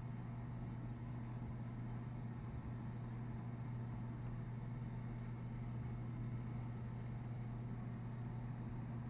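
Steady low machine hum, unchanging throughout.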